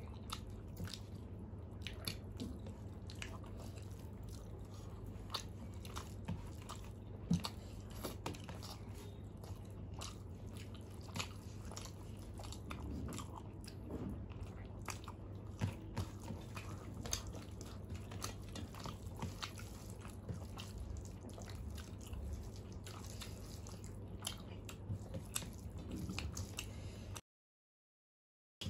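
Close-up eating sounds of two people eating rice and curry by hand: chewing, with many small scattered clicks and squishes of fingers mixing rice on steel plates, over a low steady hum. The sound cuts out completely for about a second and a half near the end.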